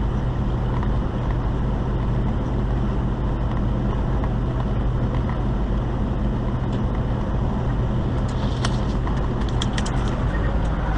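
Truck engine and road noise heard inside the cab: a steady low drone with an even rushing noise, and a scatter of faint ticks in the last few seconds.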